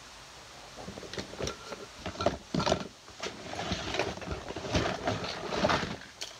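Irregular knocks, bumps and rustling of things being handled, starting about a second in and running in clusters until just before the end.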